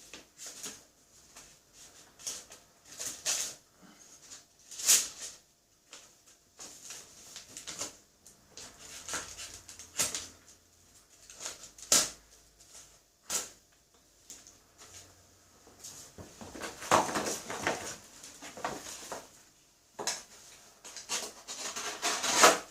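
Pocket knife being handled and used to cut: irregular clicks and taps, with longer scraping strokes of the blade through material from about 16 seconds in and again near the end.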